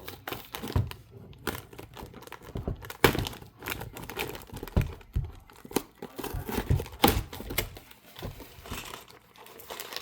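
Lego set's cardboard box being opened and its plastic bags of parts handled, with crinkling and tearing rustles and irregular light knocks.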